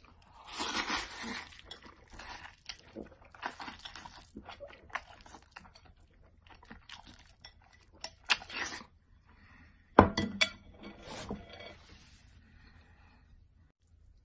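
Close-up eating sounds: crunchy bites and chewing in irregular bursts, with sharp clicks and one loud knock about ten seconds in.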